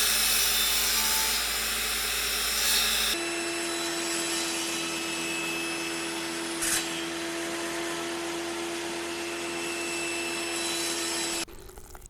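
Electric power tool motor running steadily. About three seconds in the sound changes abruptly to a different steady pitch, and it cuts off suddenly near the end.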